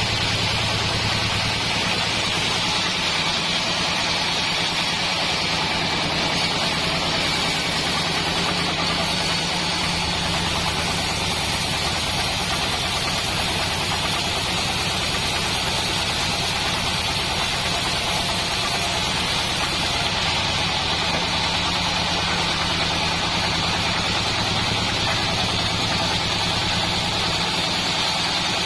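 Assembled band sawmill running steadily, a low motor hum under a constant high hiss, with no change in pace.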